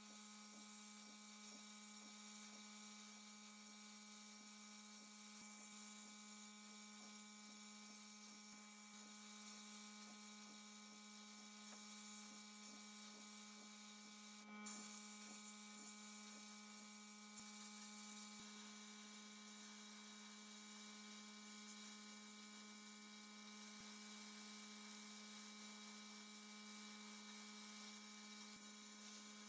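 Sandblasting cabinet in use: a steady hiss of air and abrasive from the blast gun over a steady hum, briefly breaking off about halfway through.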